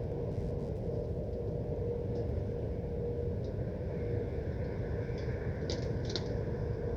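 Distant metal foundry's industrial noise: a steady low rumble with a constant mid-pitched hum running through it. Two short high-pitched sounds come near the end.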